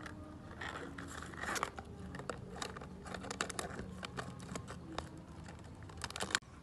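A puppy chewing and biting a thin clear plastic cup: irregular plastic crinkling and crackling, with a quick run of crackles near the end.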